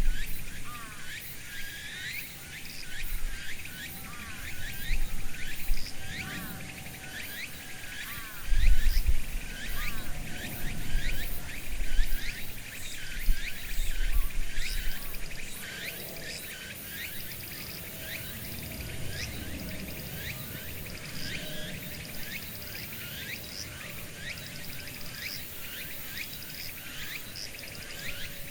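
Outdoor summer chorus of cicadas: a steady high drone with many short chirping calls repeating quickly over it. Low rumbles come and go in the first half.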